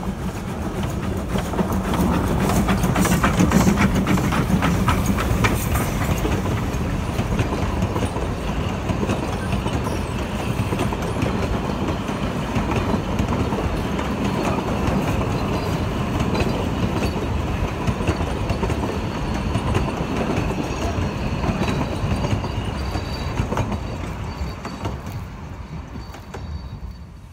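1926 narrow-gauge G42 Garratt steam locomotive passing close by, loudest a few seconds in. It is followed by a long rake of wooden carriages rolling past with wheels clicking over the rail joints, fading away near the end.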